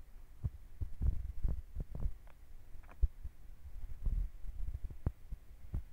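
Fire burning in a metal container, crackling and popping irregularly over a low rumble with occasional dull thumps.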